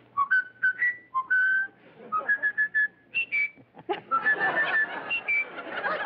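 Mynah bird whistling a string of short, clear notes, some rising in pitch, with brief pauses between them. About four seconds in, audience laughter breaks out under the last whistles.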